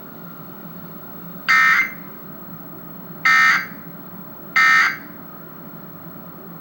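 Emergency Alert System end-of-message (EOM) tones: three short, identical bursts of shrill digital data squawks, about a second and a half apart, marking the end of the alert test.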